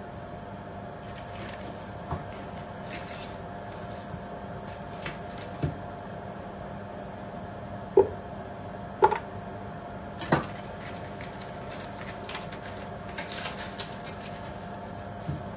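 Kitchen utensils and cookware handled at the stove: scattered clinks and knocks against a pot, the loudest three coming one after another about halfway through, over a steady faint hum.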